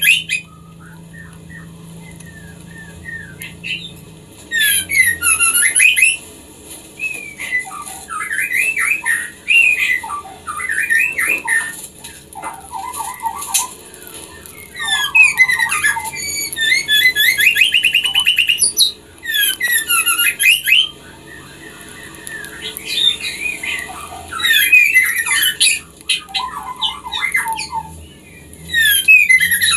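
Female white-rumped shama calling in breeding condition, the call keepers play to bring captive pairs into mating. Bursts of quick, sliding high notes and short rapid trills come every few seconds, with brief pauses between phrases.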